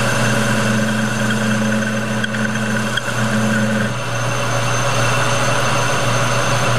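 Metal lathe running, its spindle turning a chucked workpiece with a steady machine hum. A higher steady tone sounds over the hum for the first four seconds, with a short break near three seconds in.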